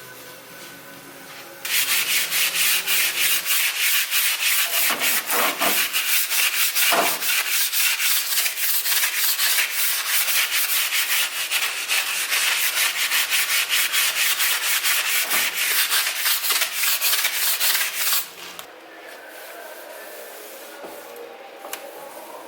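Vigorous scrubbing in quick, even back-and-forth strokes, as with a scrub brush or scourer on a hard kitchen surface or dish. It starts about two seconds in and stops abruptly a few seconds before the end.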